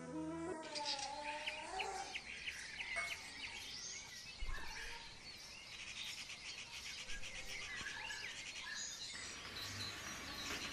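Several birds chirping and calling, many short high calls overlapping in a busy chorus. Background music stops about half a second in.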